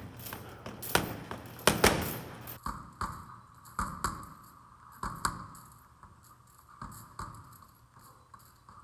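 Boxing gloves punching a hanging heavy bag in quick, irregular combinations, each punch a sharp thud; the hardest shots come about two seconds in and the punching grows lighter and sparser near the end.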